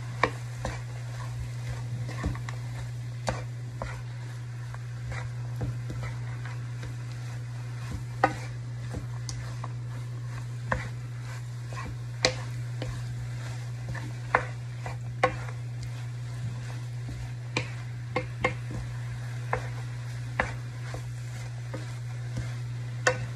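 Wooden spatula stirring chicken and ginger in a metal wok, with irregular sharp knocks against the pan over a light sizzle of frying. A steady low hum runs underneath.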